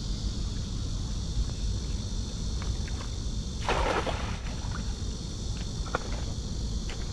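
Water sloshing and splashing, with one louder splash about four seconds in, over a steady high drone of insects.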